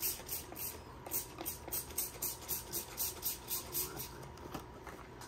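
Trigger spray bottle squirting cleaner in quick repeated sprays, about three a second, stopping about four seconds in.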